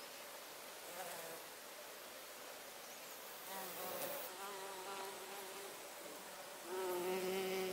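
Honeybee buzzing in flight close by: a steady-pitched hum in two spells, a shorter one starting about halfway through and a louder one near the end.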